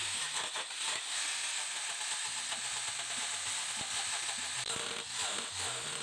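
Handheld electric angle grinder grinding into a block of wood, a steady hiss of the disc taking off wood.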